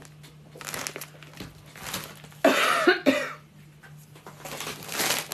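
A person coughing once, briefly, about two and a half seconds in, over a steady low hum.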